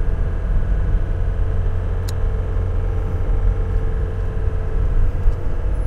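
Scudo camper van driving on the road, heard from inside the cabin: a steady low engine and road rumble, with one faint click about two seconds in.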